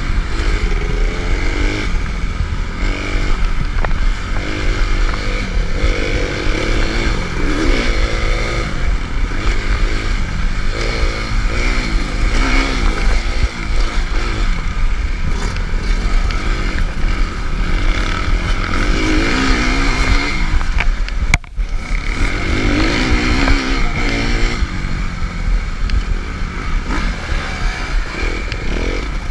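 2011 Suzuki RM-Z250 dirt bike's single-cylinder four-stroke engine revving up and down over and over as the rider works the throttle through a motocross lap, with a constant low rumble underneath. The sound drops out for an instant about two-thirds of the way through.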